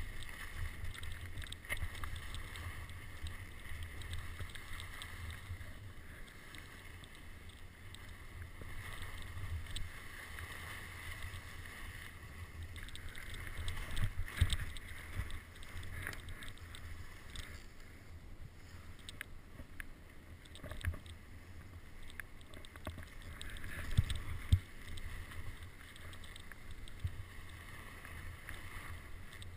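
Skiing down a steep snow slope: a continuous swishing hiss of sliding over snow, with wind rumbling on the camera's microphone and a few louder knocks partway through.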